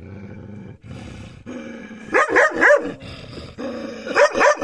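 A dog growling low at its own reflection in a mirror, breaking into barks: three quick barks about two seconds in and two more near the end.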